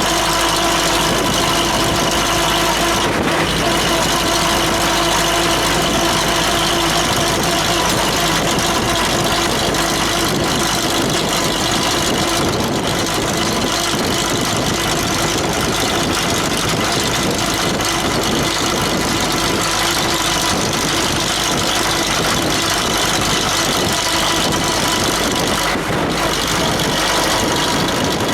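Steady street traffic noise, with engines running, a constant hum of several steady tones, and a dense rushing noise underneath.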